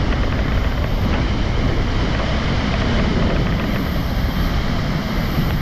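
Steady, loud roar of rain-swollen rushing water from a waterfall.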